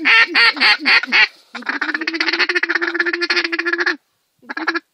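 Loud, close duck quacking: a few quacks that fall in pitch, then a long fast run of even quacks at one pitch. The run breaks off about four seconds in and starts again just before the end.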